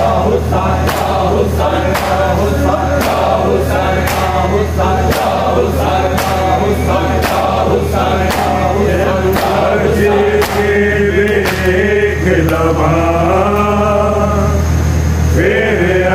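Men's voices chanting a nauha (Muharram lament) together, with sharp slaps about once a second keeping the beat: the hand-on-chest strikes of matam.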